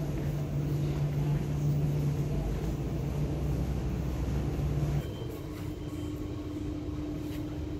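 Steady low hum of a vehicle engine running close by. About five seconds in it changes abruptly to a quieter, different steady hum with a higher tone.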